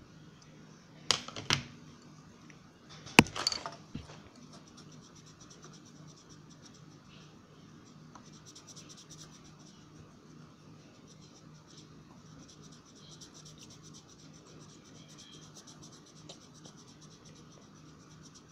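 Coloured pencil scratching on paper in quick back-and-forth strokes, which comes in faintly after a few sharp knocks and clatters in the first four seconds.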